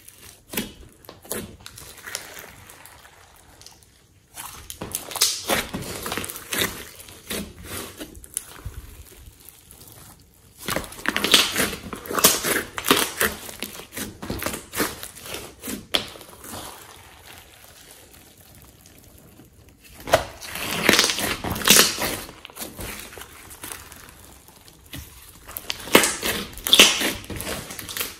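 Glossy slime mixed with clay being kneaded, pressed and folded by hand, squishing and crackling in bursts of a few seconds with quieter stretches between.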